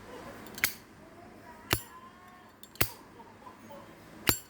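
Genuine American Zippo lighter's hinged metal lid flicked open and snapped shut: four sharp, crisp metallic clinks about a second apart, each with a brief bright ring.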